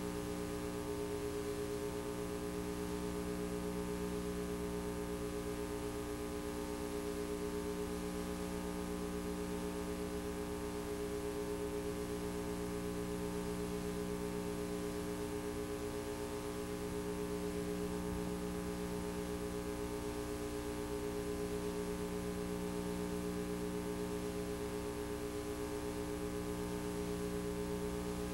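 Steady electrical buzz of several constant tones with a faint hiss beneath, unchanging throughout: line noise from the transfer of a VHS tape that carries no recorded audio.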